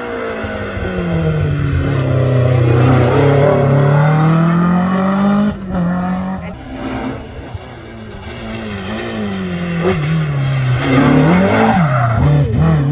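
Historic rally car engine revving hard as it passes, with the pitch gliding down and back up through gear changes. There is a brief break about five and a half seconds in, and it is loudest near the end as it accelerates hard again.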